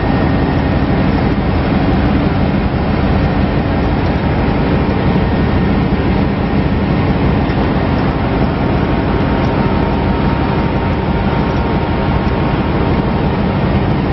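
Ship's engine-room machinery running: a loud, steady drone with a faint steady hum running through it.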